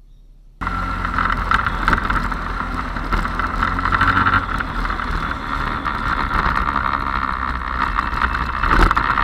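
Steady engine and road noise from a motorbike-mounted camera riding in traffic. It cuts in abruptly less than a second in and swells briefly near the end.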